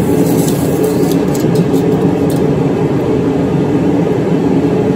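A loud, steady low drone with a few faint ticks over it.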